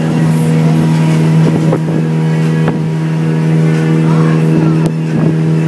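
A passenger launch's engine running at a steady cruising speed, heard from aboard: a constant low drone that holds one pitch.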